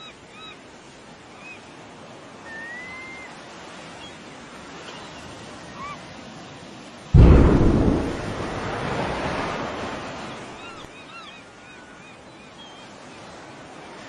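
A huge explosion, billed as a nuclear bomb detonated at sea: a sudden loud blast about halfway through, then a deep rumble fading over several seconds. Before it, a steady hiss with a few faint high chirps.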